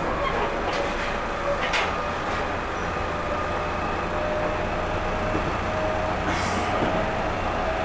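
Interior of a JR 209 series 2100-subseries electric train car running at speed: a steady rumble of wheels on rail with a steady whine from its MT68 traction motors. A brief high hiss cuts in about six seconds in.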